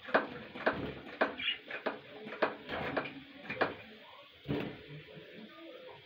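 Hand spray bottle misting water over budgies in their cage: a run of short squirts, about two a second, then one more after a pause.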